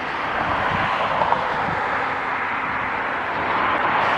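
A passing vehicle heard as a steady rushing noise that swells slowly and then holds.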